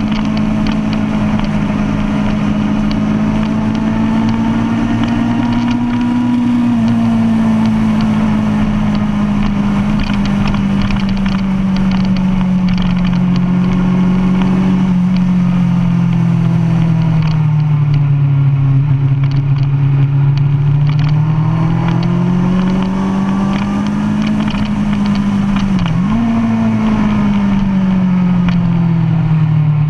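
2005 Kawasaki Ninja ZX-10R's inline-four engine through a DanMoto racing exhaust, running hard on track, its note rising and falling slowly with the throttle. About 26 seconds in the pitch dips briefly and then jumps back up.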